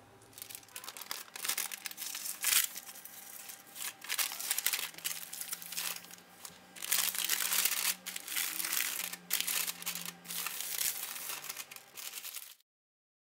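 Parchment paper crinkling and rustling in irregular bursts as it is rolled tightly around a log of raw ground-chicken mixture and gathered at the ends, cutting off abruptly near the end.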